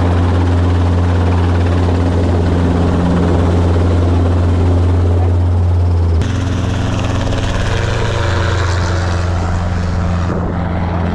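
Light helicopter's rotor and engine running loud and steady, heard from inside the cockpit as it sets down on the ground. The sound changes abruptly about six seconds in.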